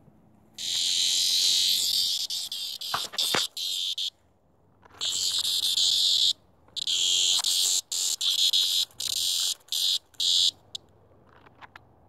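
A cicada buzzing loudly in harsh bursts that start and stop abruptly several times, the longest lasting a few seconds: the distress buzz of a disturbed cicada being nosed by a puppy.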